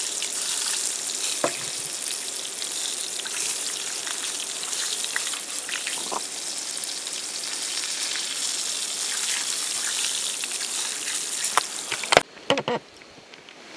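Fish frying in a pan of hot oil: a steady sizzle with a few faint pops, which cuts off suddenly near the end, followed by a few short knocks.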